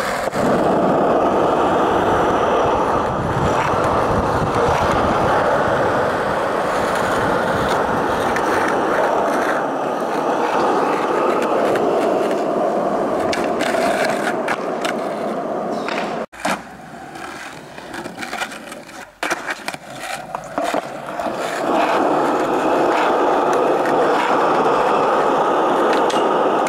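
Skateboard wheels rolling on concrete, with the board sliding along a concrete ledge and a metal rail. About sixteen seconds in the rolling cuts off suddenly, and a quieter stretch with a few sharp clacks follows before the rolling returns.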